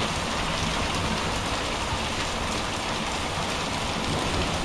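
Heavy thunderstorm rain with small pea- to marble-size hail pouring down in a steady, even hiss.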